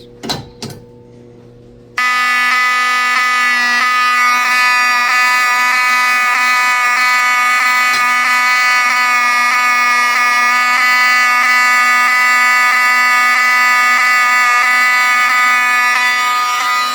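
Fire alarm system sounding on continuous: its horns, including the 7002T horns, go off together with a steady, loud buzzing tone that starts suddenly about two seconds in.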